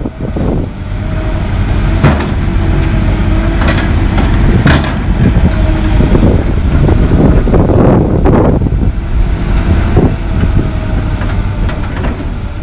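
Heavy diesel vehicle running with a steady low rumble, broken by several sharp knocks and clanks. It fades in at the start.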